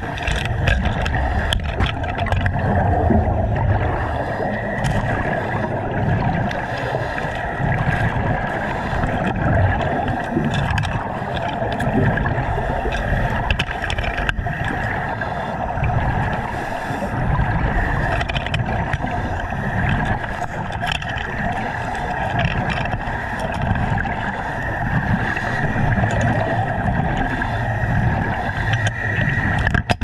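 Steady rush and gurgle of a diver's air supply and exhaust bubbles heard underwater, with a low rumble that swells and fades every second or two.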